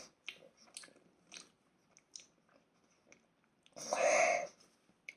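A person chewing and biting into a toasted grilled cheese sandwich close to the microphone: soft, scattered crunches and mouth clicks, with one louder breathy sound about four seconds in.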